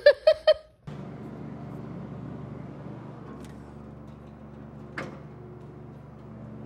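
A steady low hum, with a single click about five seconds in. It opens with a few short, loud voice sounds that stop within the first second.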